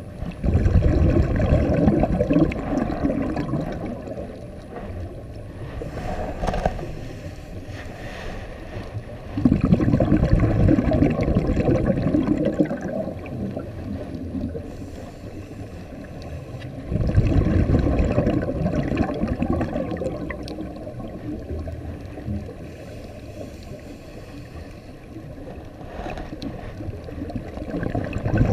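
Scuba diver's regulator exhaust: bubbling gurgles of exhaled air in bursts that start about every eight seconds, each fading over several seconds, heard underwater through a GoPro housing.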